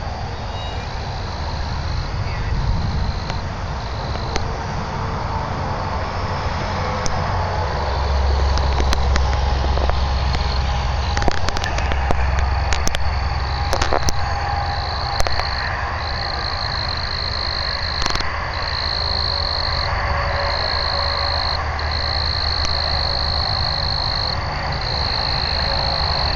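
Frogs calling in repeated high-pitched trills, each a second or two long, which grow louder and more continuous from about a third of the way in. Under them is a low rumble of wind on the microphone, with a few scattered clicks.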